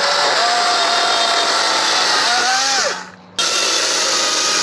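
Chainsaw speeding up and cutting through wood: a rising whine settles to a steady pitch while cutting, then sags. It cuts out abruptly for a moment about three seconds in, then runs and cuts again, winding down near the end.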